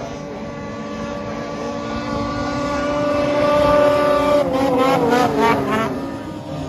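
Racing snowmobile engine at high revs as the sled skims across open water and passes close by. It grows louder to a peak about halfway through, then its pitch wavers and drops as it moves away.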